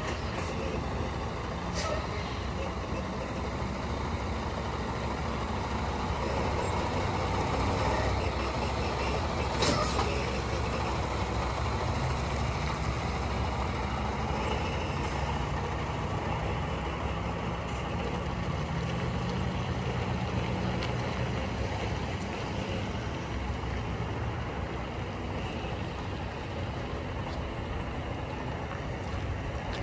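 Diesel engine of a Freightliner Cascadia semi truck running at low speed as the tractor-trailer is slowly maneuvered and backed, a steady drone. Two short sharp sounds, near the start and about ten seconds in.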